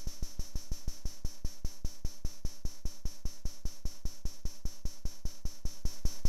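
XORbell, a DIY CMOS metallic-noise percussion module built from XOR gates and 40106 square-wave oscillators, gated through a VCA and triggered in a fast even pulse of about seven hits a second. A steady high metallic hiss runs under the hits.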